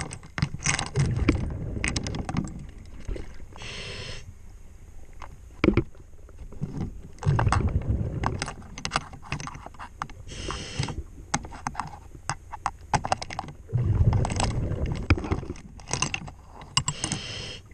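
Diver's breathing heard underwater: a short regulator hiss on each inhale, about every six and a half seconds, followed by a long rumbling rush of exhaled bubbles. Sharp clicks and knocks of gloved hands working on the saildrive propeller run through it.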